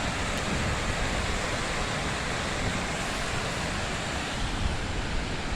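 River water rushing, a steady even hiss, with wind rumbling on the microphone underneath.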